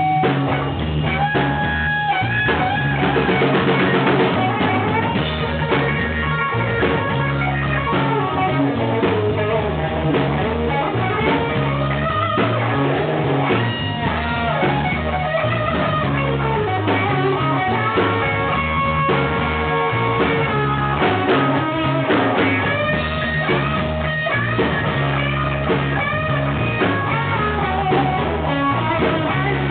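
Blues band playing live: guitar lines over bass and a drum kit keeping a steady beat.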